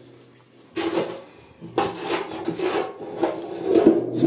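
Rough scraping and rubbing of metal gearbox parts being handled, in three passages of under a second each, after a quiet start.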